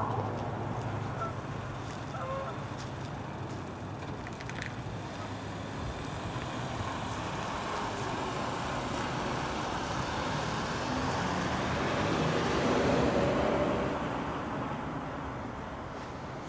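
A vehicle passing: a low engine hum under a rising rumble that is loudest about three-quarters of the way through, then fades.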